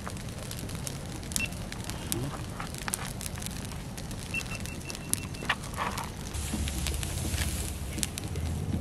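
Open fire of rice straw and wood burning with a steady crackle of small pops. The fire grows louder and more rushing from about six and a half seconds in.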